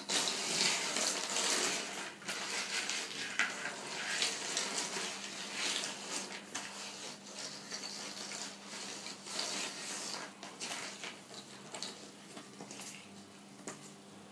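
Small hard plastic animal figures clattering and sliding against each other and the tabletop as a pile of them is stirred and spread by hand. The clatter is loudest in the first couple of seconds, then thins to scattered clicks as single pieces are picked up and set down.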